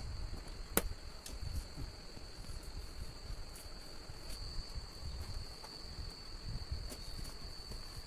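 Steady high-pitched chirring of crickets, with a low handling rumble. About a second in, a single sharp snip as scissors cut through the plastic packing strap on a cardboard TV carton, followed by a few faint clicks.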